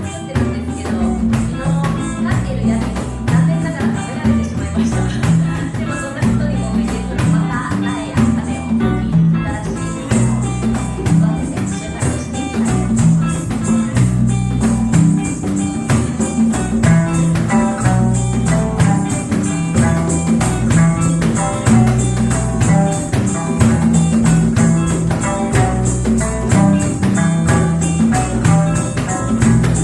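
Live reggae band music: a steady bass line under plucked sanshin notes and a continuous tambourine-like percussion rhythm. A brighter high percussion layer comes in about ten seconds in.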